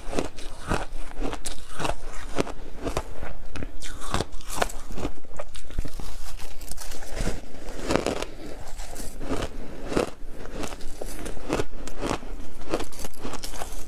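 Close-up crunching of purple block ice coated in matcha milk powder being bitten and chewed in big bites: a dense, irregular run of sharp cracks, several a second.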